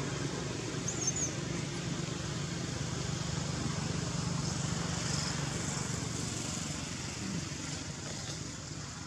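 Steady low engine drone, like a motor vehicle running at a distance, easing off near the end, over outdoor background noise. A short high chirp sounds about a second in.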